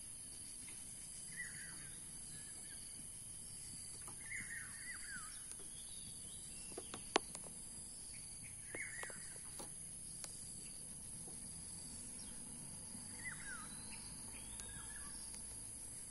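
A bird repeating a short call of quick falling notes about every four to five seconds, over a steady high-pitched insect drone. A single sharp click about seven seconds in.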